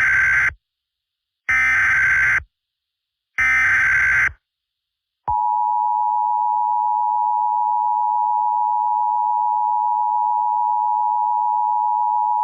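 Emergency Alert System SAME header: three short bursts of digital data tones about a second apart, the first already under way, which encode the alert. About five seconds in, the EAS two-tone attention signal starts, a steady dual tone of 853 and 960 Hz that warns an emergency message follows.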